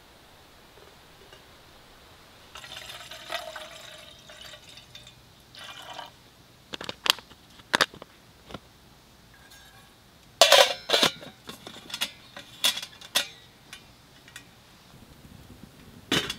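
Water poured into a metal camp pot for a couple of seconds, then a run of sharp metal clinks and clanks of pot, lid and kettle, loudest about ten seconds in. A last clank near the end as the kettle is set on the small wood stove.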